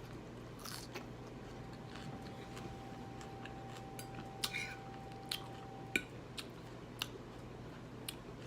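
Eating sounds: a fork clicking against a plate every second or so, with chewing between the clicks. A faint steady tone runs underneath for about five seconds in the middle.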